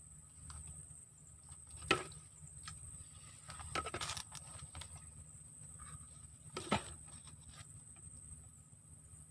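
Faint, steady high-pitched drone of insects, with a low rumble underneath. Sharp clicks or knocks break in about two seconds in, again around the middle, and once more later on.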